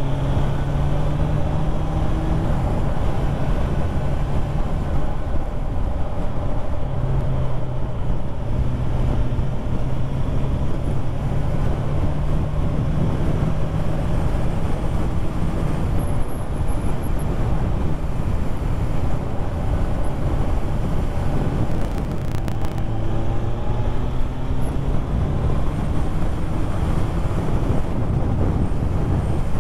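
Motorcycle engine running at road speed under a steady rush of wind noise. The engine note climbs as the bike accelerates near the start and again a few seconds before the end.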